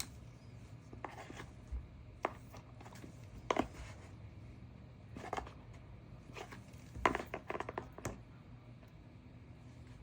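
Scattered light clicks and taps from handling a smartwatch, over a faint steady hum, with a quick run of taps about seven seconds in.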